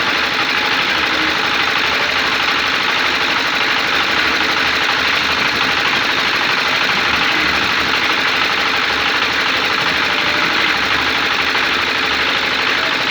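Huina 1550 RC excavator's electric drive motors and gearboxes running with a steady whirring buzz.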